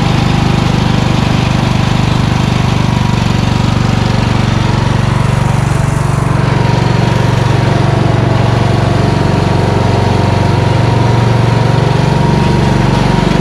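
The MTD Yard-Man lawn tractor's 15.5 hp Briggs & Stratton engine running steadily as the tractor is driven.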